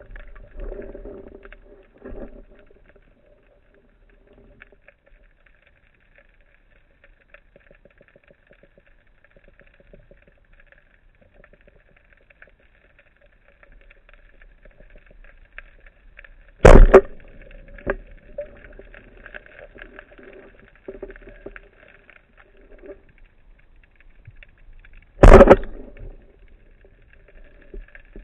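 Underwater sound of a breath-hold spearfishing dive heard through the camera housing: a faint, steady hum with light crackling, broken by two sharp, loud knocks about eight seconds apart.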